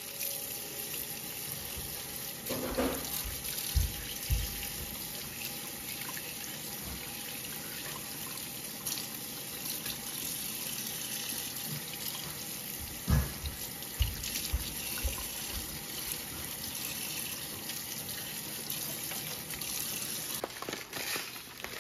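Kitchen tap running steadily onto raw shrimp in a stainless mesh colander in a sink, as hands rub and turn the shrimp under the stream. A few dull knocks come through, the loudest about 13 seconds in.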